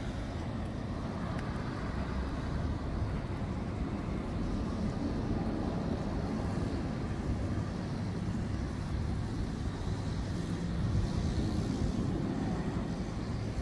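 Road traffic: a steady low rumble of passing vehicles, swelling as one goes by about ten seconds in.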